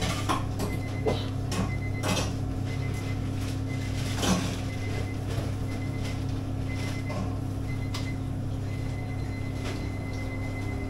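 Fast-food kitchen and counter ambience: a steady low hum of kitchen equipment with scattered clicks and clatter of kitchen work, the loudest knock about four seconds in. A faint high tone comes and goes.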